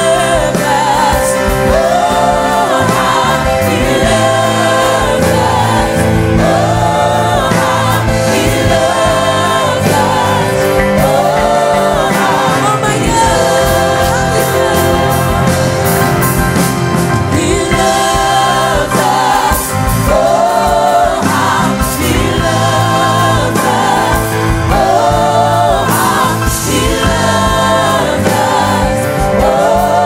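Live gospel worship music: a woman singing lead over keyboard, with a group of backing singers.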